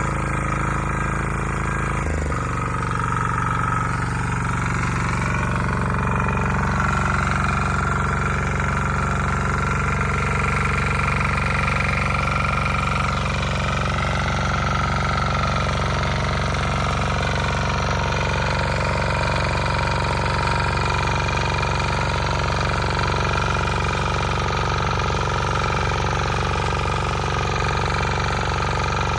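Bolat Atom walk-behind power tiller engine running steadily. Its note changes abruptly about two seconds in, then holds steady.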